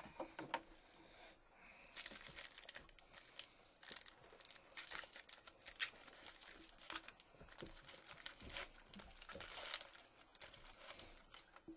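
Foil wrapper of a Topps Chrome trading-card pack crinkling and being torn open by hand, in a run of irregular short crackly rustles.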